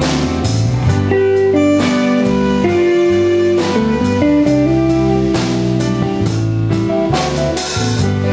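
Small jazz combo of saxophone, guitars and drum kit playing a tune, with melody notes held over a low bass line and steady cymbal and drum strokes.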